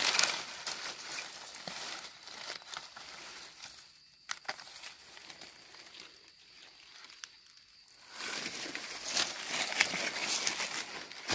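Dry leaf litter and grass crackling and rustling as a mushroom is picked from the forest floor. It quietens in the middle, then grows louder with crunching footsteps through dry leaves near the end.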